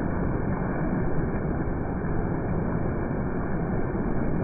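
Heavy monsoon rain pouring steadily, with a small hatchback car driving past on the wet road.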